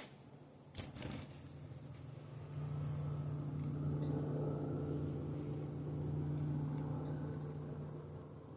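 A low, steady engine hum that swells about two and a half seconds in, holds, then fades near the end, with two sharp clicks near the start.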